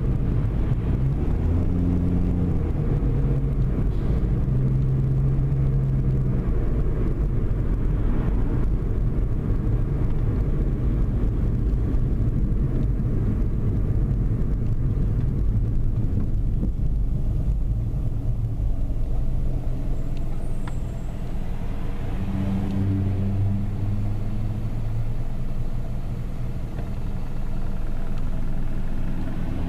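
Car driving in town, heard from inside the cabin: a steady low rumble of engine and road noise, with the engine note shifting pitch a few times as the car speeds up and slows.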